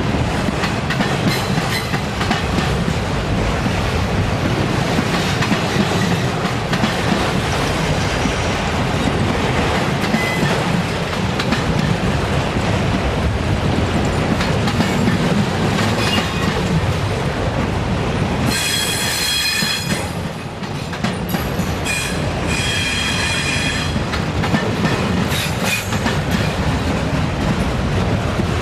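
Autorack freight cars rolling past: a steady rumble and clatter of steel wheels on rail. Shrill wheel squeal breaks in about two-thirds of the way through and again a few seconds later.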